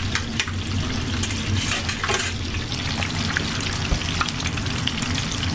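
Chicken wings deep-frying in a large pot of very hot oil: a dense, steady sizzle full of small crackling pops, with a steady low hum underneath.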